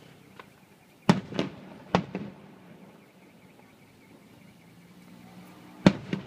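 Aerial firework shells bursting with sharp bangs that echo briefly: a cluster of four about a second in, then two more near the end.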